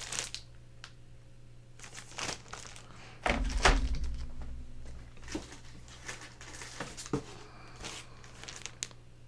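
Handling noise while unpacking graded comic books: rustling of packing material and light clicks and knocks of hard plastic CGC slabs, with one heavier thump about three seconds in.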